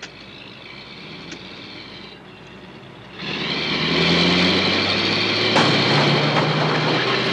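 A Dodge van's engine racing as the van speeds up the road and past a parked car, the sound coming in loudly about three seconds in, with a steady high whine over the engine note. Before that there is only a low, steady background.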